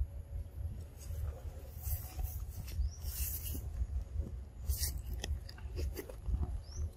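Scattered short crunching and rustling noises, typical of a pig-tailed macaque chewing food, over a steady low rumble on the microphone.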